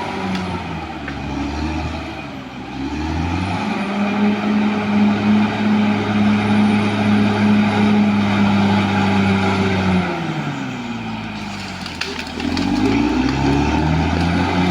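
Caterpillar D6R XL bulldozer's diesel engine working under varying load. Its speed dips about a second in and climbs back near four seconds. It holds high for about six seconds, then sags before rising again near the end.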